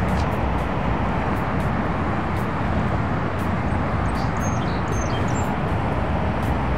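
Steady outdoor background noise: a low rumble and hiss, with a few faint high chirps a little past the middle.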